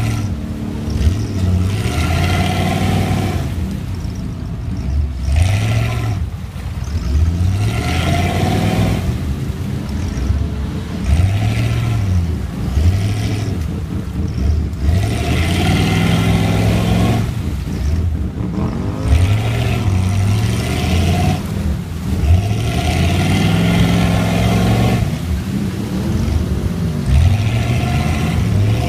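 Volvo TP21 "Sugga" off-road car's engine revved again and again, each rev rising and falling over a second or two, as the car works bogged down in deep mud.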